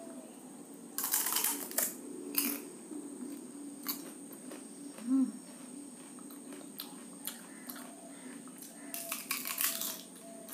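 Crisp, dry panipuri (puri) shells cracking and crunching as they are broken open and bitten. There are two bursts of crackling, about a second in and again near the end, with a few single cracks in between.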